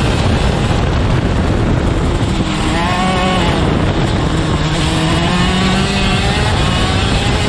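Racing kart engine heard from onboard, with wind buffeting the microphone. The engine note dips as the kart slows into a corner a little over two seconds in, then climbs steadily as it accelerates out.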